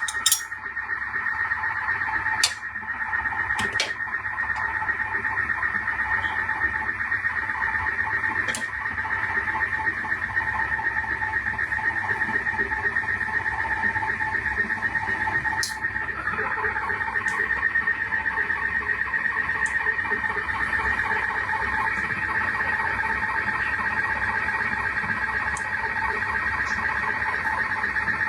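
Steady electrical or mechanical hum with a high whine, unchanging, with a few sharp clicks in the first several seconds.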